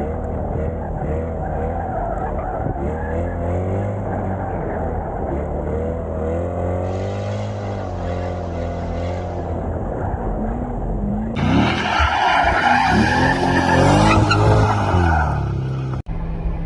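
C8 Corvette's V8 revving up and down as the car spins its rear tires in donuts, the tires skidding on the pavement. About eleven seconds in the sound turns louder, with tire squeal over the engine, and it breaks off suddenly near the end.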